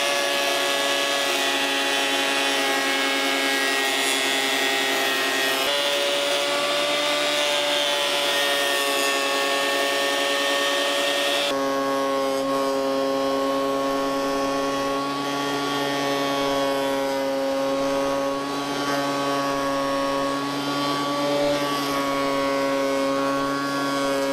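Scheppach HMS1070 jointer-planer running with a steady whine while a pine square timber is pushed along the fence over its two-knife cutterhead, face-jointing the board. The tone shifts abruptly twice.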